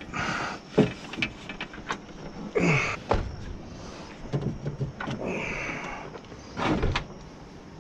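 Irregular clicks, knocks and scrapes of hand work on the window glass and regulator inside a car door, as the parts are worked loose.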